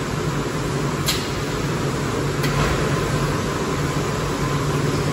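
Steady hum and whir of packaging-plant machinery, with a low drone, and two faint clicks about one and two and a half seconds in.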